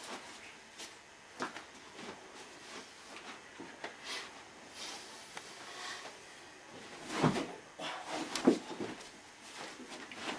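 Scuffling and thuds of two men grappling in a knife-disarm drill: shuffling feet and bodies knocking together on a carpeted floor, with two louder thumps about a second apart past the middle.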